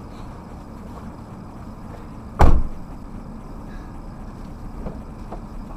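A moving vehicle's steady low rumble, with one loud thump about two and a half seconds in.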